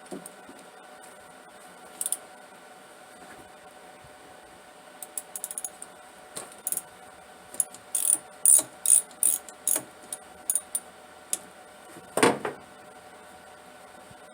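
Ratchet wrench with a spark plug socket clicking in short runs as a 13/16-inch spark plug is worked loose, followed by a louder knock near the end.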